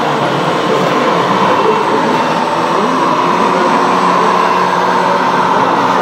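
Radio-controlled scale model trucks driving: steady mechanical running with a constant mid-pitched whine over a continuous background din, and a steady low engine-like note joining about halfway through.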